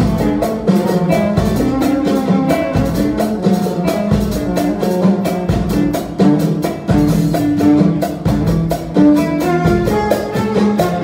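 Moroccan chaabi music: a bowed violin playing a melody over a steady, fast drum beat.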